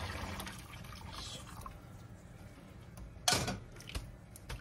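Hot water poured from a kettle splashing through noodles in a stainless steel mesh strainer into the sink, tapering off within the first second or two. A single sharp knock follows about three seconds in, with a couple of small clicks after it.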